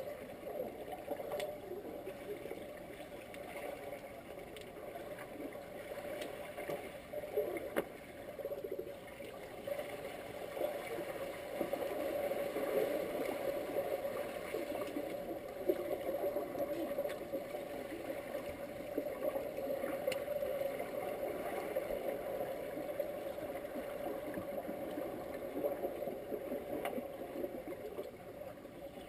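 Muffled water noise picked up underwater in a swimming pool as swimmers in fins move through it: a steady low rush with a few faint clicks.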